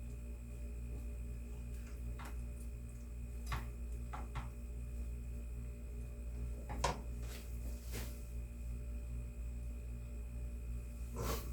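Steady low electrical hum, with a few scattered light clicks and knocks, the loudest about two-thirds of the way through and near the end.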